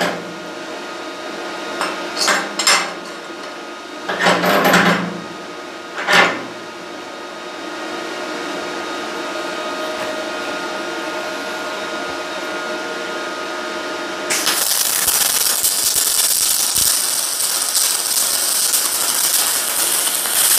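A steel screw clamp clanks and knocks as it is set and tightened on a perforated steel welding table, over the steady hum of the welder. About fourteen seconds in, the Parkside PMSG200A2's MIG arc strikes on aluminium square tube, an even crackling hiss, with the voltage turned down slightly after the previous weld ran too hot.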